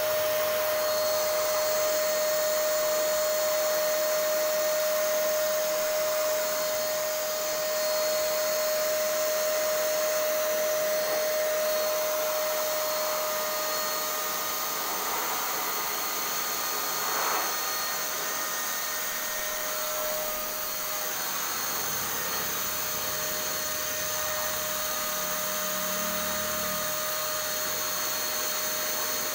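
Electric HVLP paint sprayer running: the turbine blower gives a constant whine over a steady rush of air and spray from the gun.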